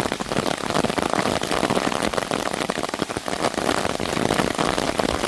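Steady rain falling as a thick shower of drops striking close by, with gusting wind.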